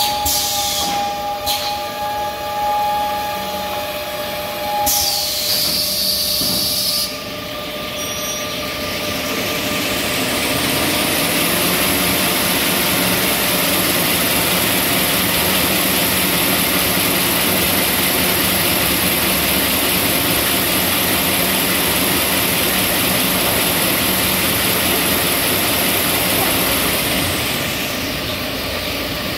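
Toilet-paper log saw machine running: a steady whine at first, a short hiss of air about five seconds in, then a loud, even rushing noise that starts about eight seconds in and eases off near the end.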